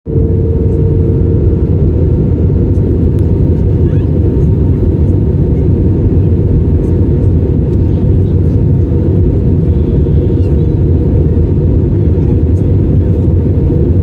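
Steady, loud cabin rumble of an Airbus A320-family airliner in flight, engine and airflow noise heard from a window seat. A faint hum in the mix fades out about a second and a half in.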